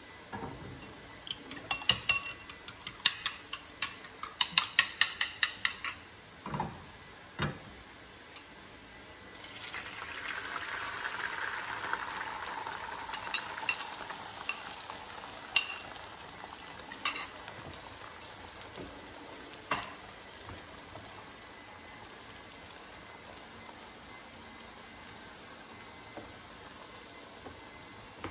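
Eggs and milk whisked briskly in a ceramic bowl, a fast run of clinking taps for about five seconds. Then the egg mixture is poured into a hot frying pan over a gas burner and sizzles, loudest at first and settling to a soft steady sizzle, with a few sharp taps of a utensil on the bowl.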